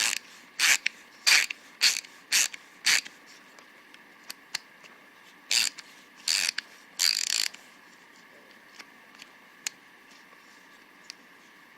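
Ratcheting 1/4-inch hex bit driver clicking in short bursts as the handle is swung back and forth: six quick strokes about half a second apart, then after a pause three more, the last one longer.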